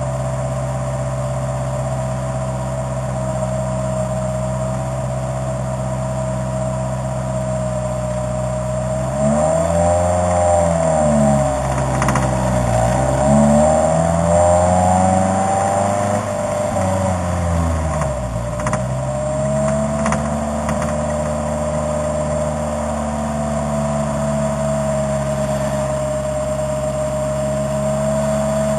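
A vehicle engine running at a steady pitch, then revved up and down several times over about nine seconds in the middle before settling back to a steady drone.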